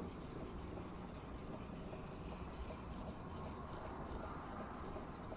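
Fine 20/14 diamond stone, oiled, stroked back and forth along a very hard CPM Rex121 powder-steel knife edge in a guided sharpener: a faint, even rubbing of abrasive on steel as the burr is worked off.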